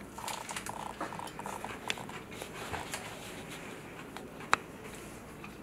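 A man biting into and chewing a sandwich of panko-breaded fried snapper on a toasted bun with lettuce: soft crunching and mouth noises, with one sharp click about four and a half seconds in.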